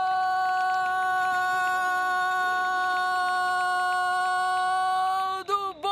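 Football commentator's drawn-out goal cry, one long "gooool" held at a steady high pitch for about five seconds, breaking into short cries near the end. It hails a goal just scored.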